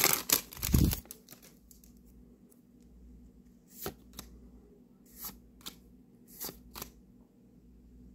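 Yu-Gi-Oh trading cards being handled: a brief crinkle and a low thump in the first second, then quiet with a handful of short, soft flicks as cards are slid off the stack one at a time.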